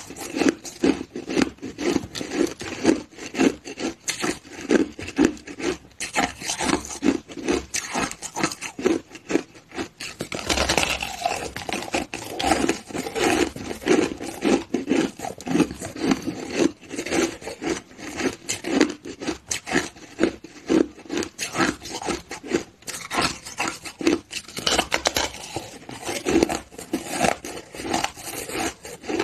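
A person biting and chewing a frosty, crystalline block of ice, a steady run of dense, gritty crunches with no pause.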